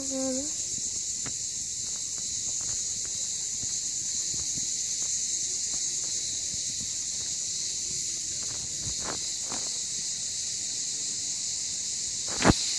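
Steady, high-pitched chorus of cicadas, with faint footsteps and phone-handling clicks, and a sharp knock near the end.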